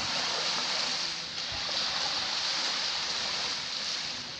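Sea waves washing onto a beach: a steady hiss of surf that swells and eases, dipping briefly about a second in and fading slightly near the end.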